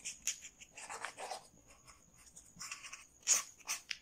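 Marker pen writing on paper: a string of short, irregular scratchy strokes as a word is written and underlined.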